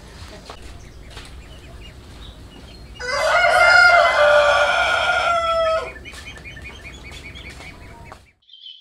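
A rooster crowing once, a single drawn-out crow of about three seconds that starts about three seconds in and is the loudest sound, over a low steady outdoor background.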